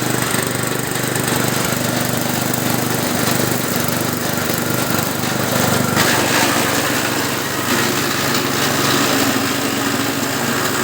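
Engine-driven elephant-grass chopper running steadily, its small engine's note shifting about six seconds in.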